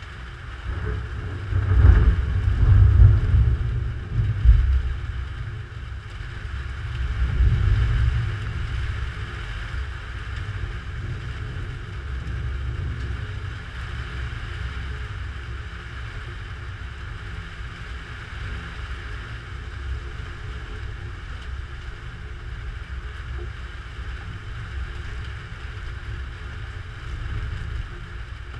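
Thunder rumbling after lightning strikes, in two big rolling swells during the first eight seconds, then dying down to a lower steady rumble of storm noise.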